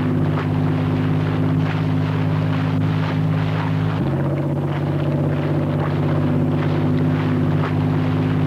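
Boat engine running steadily at speed while the mullet seine is paid out over the stern, with its pitch shifting abruptly about four seconds in.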